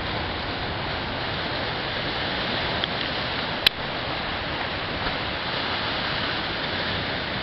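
Surf washing over the rocks along a rocky shore, a steady rush of small breaking waves. One sharp click about halfway through.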